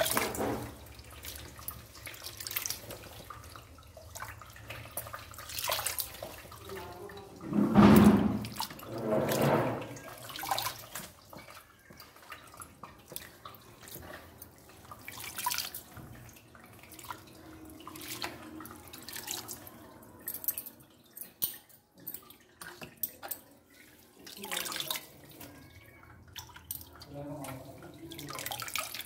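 Water splashing and sloshing in a plastic tub as hands swish and lift fresh chickpea leaves to wash them, with a tap pouring into the tub at the start. The splashes come irregularly; the loudest are about eight and nine and a half seconds in.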